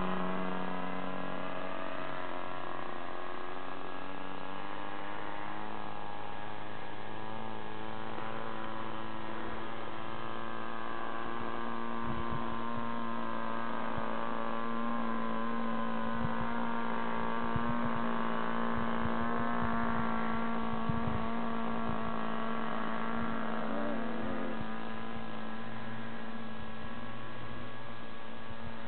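An OS 60 glow engine on a Sal Taibi Powerhouse model aircraft, droning steadily in flight. The engine is old and plain-bearing. Its pitch rises a little in the first few seconds, then holds steady.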